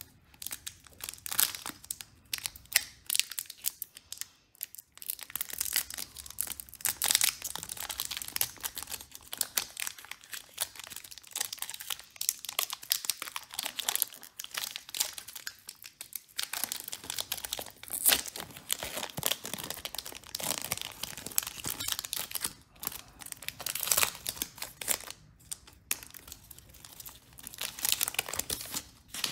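Foil wrapper of a Pokémon TCG booster pack crinkling and tearing as it is torn open and peeled apart by hand: a dense run of sharp crackles with a few short pauses.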